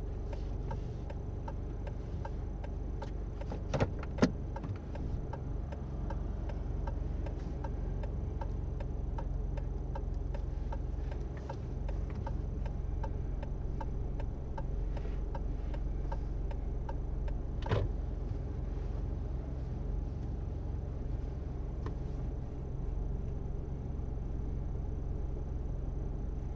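Inside a car's cabin during a slow reverse parallel park: the engine runs low and steady under a faint, regular ticking of the turn-signal indicator, with a few sharper clicks a few seconds in and once past the middle.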